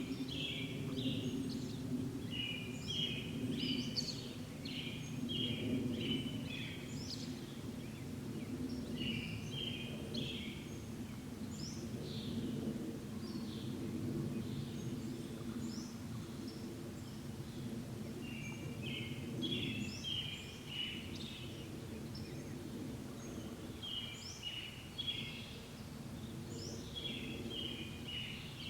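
High bird chirps in short clusters of quick notes, repeating every few seconds, over a steady low background rumble.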